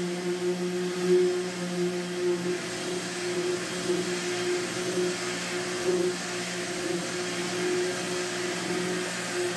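Random orbital sander with an attached dust-extraction vacuum running steadily while sanding gel coat and filler on a fiberglass boat hull. The steady hum and hiss waver slightly as the sander is pressed and moved over the surface.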